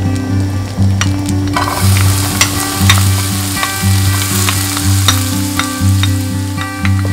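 Butter foaming in a nonstick frying pan, then chopped onion tipped in about one and a half seconds in: the sizzle grows louder and stays up. Scattered clicks and scrapes come from a spatula stirring the onion in the pan.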